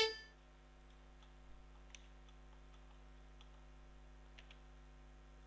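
A short, bright ding right at the start that dies away within about a third of a second, then a few faint scattered clicks of a computer mouse over a low steady hum.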